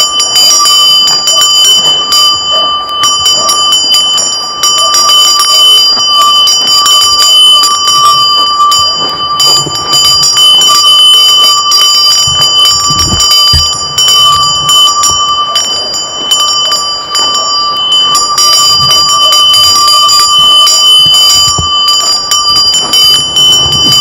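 Cowbell on a grazing cow's neck strap clanking continuously and irregularly as the cow moves its head, the bell's ringing tones held steady under the strikes.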